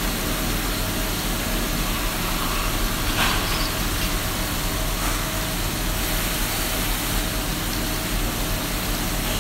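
CNC machining centre milling metal parts under flood coolant: a steady machine hum with the hiss and splash of coolant, briefly louder about three seconds in.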